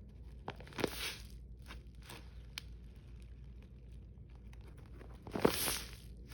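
Tape-covered paper squishies being squeezed, the packing tape and paper crinkling and crackling, with two louder squeezes about a second in and near the end and small clicks between.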